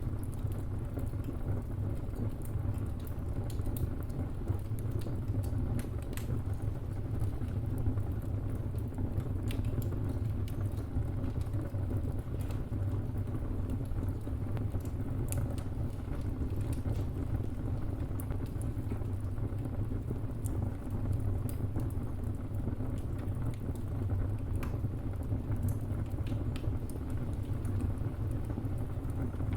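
Wood fire burning: a steady low rumble with frequent small crackles and sharp pops scattered at irregular intervals.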